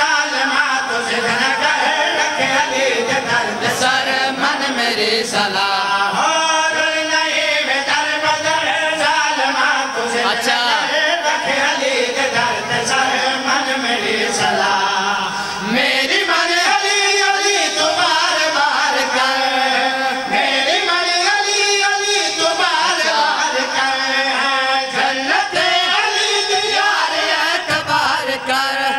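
A group of men and a boy chanting a devotional verse together into microphones, the voices held in long, sustained notes, with a short break about halfway.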